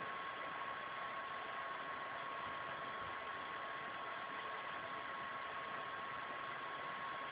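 Steady electrical hiss with a thin, constant high-pitched tone running through it, the background noise of the recording; nothing else is heard.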